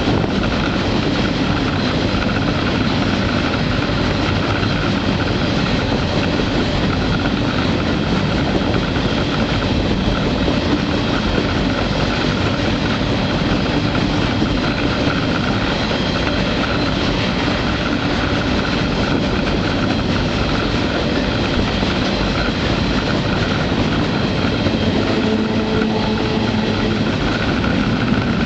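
Freight train rolling along at speed, heard from on board: a loud, steady rolling noise of the cars running on the rails.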